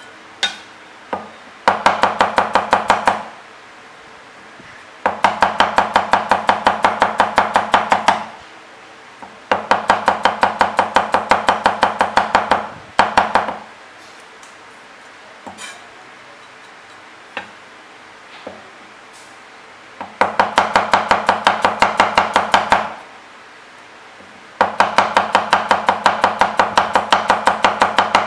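Chinese chef's knife (cleaver) chopping through garlic cloves onto a wooden chopping block, cutting them into thin slices. It goes in quick runs of rapid, even knocks, several a second, each run a few seconds long. Between the runs are pauses with a few single knocks.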